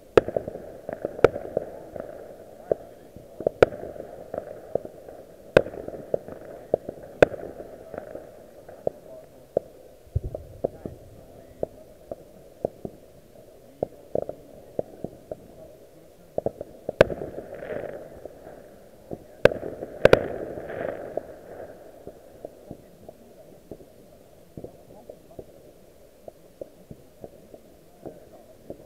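Distant fireworks: many muffled bangs and pops at irregular intervals over a continuous low crackle. The loudest reports come about a second in, around six and seven seconds, and around seventeen and twenty seconds.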